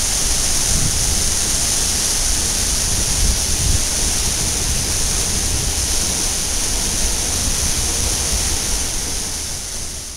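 Loud, steady rush of a large waterfall's water crashing down close by, with wind rumbling unevenly on the microphone; it fades near the end.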